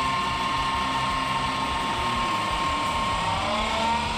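A 2 HP 220 V electric motor driving a KMG belt grinder, run from a KBAC variable frequency drive, running with a steady whine. About three seconds in, the whine starts rising in pitch as the drive's speed dial is turned up.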